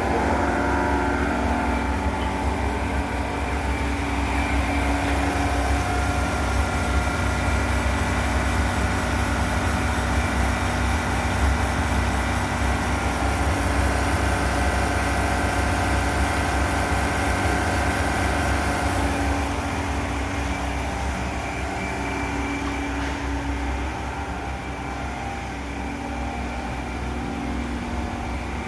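An ice-making machine runs steadily, with a deep low hum, several steady whining tones and a hiss over them. It gets slightly quieter about two-thirds of the way through.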